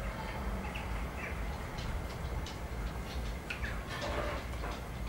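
A few short bird chirps over a steady low rumble, with scattered soft clicks and rustling.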